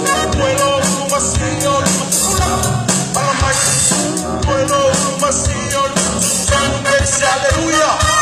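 A Samoan pese savali (marching song): singing over band music with a steady drum beat.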